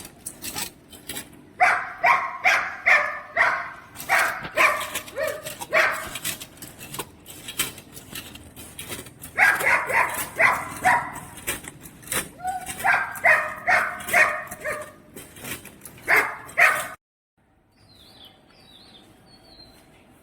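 A dog barking in several runs of rapid barks, with sharp knocks in between. The sound cuts off suddenly near the end, and a bird chirps faintly after it.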